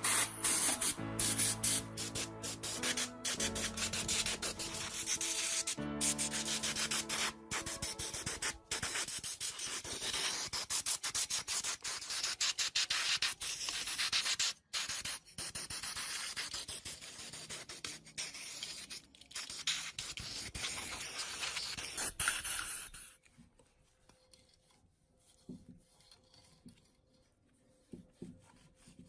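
Steady abrasive rubbing, like sanding or scrubbing of the TV's cabinet, broken by many abrupt cuts and stopping about 23 seconds in. Music runs underneath for the first several seconds, and quiet small handling sounds follow the rubbing.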